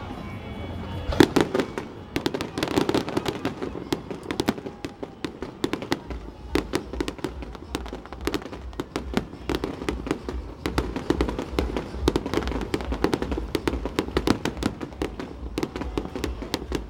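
Aerial fireworks going off in rapid succession: a dense stream of sharp cracks and pops over a rumble of low booms, thicker from about six seconds in.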